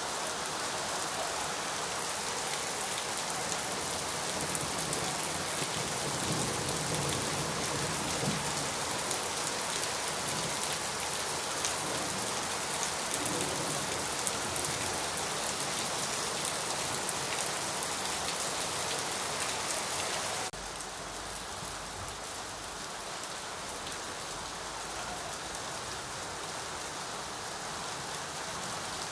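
Steady rain falling, a dense even patter of drops. About twenty seconds in it drops suddenly to a slightly softer rain.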